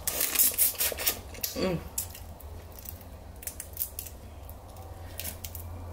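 Crisp cracks and clicks of boiled crab and shrimp shells being peeled and picked apart with the fingers, with wet sucking and smacking at the mouth. The clicks are densest in the first two seconds and come only now and then after that.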